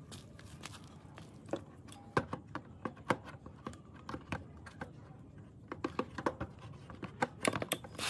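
Irregular light clicks and knocks of small parts and hand tools being handled in workshop work, busiest about two seconds in and again over the last two seconds.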